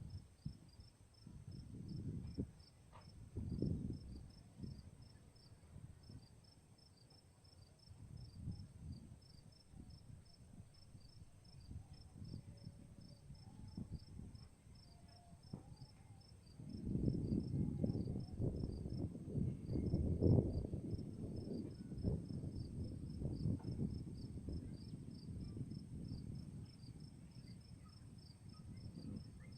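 Crickets chirping in a steady, evenly pulsed rhythm, a few chirps a second, with a thin steady high hum above them. Under them runs low rumbling noise that grows louder a little past the middle.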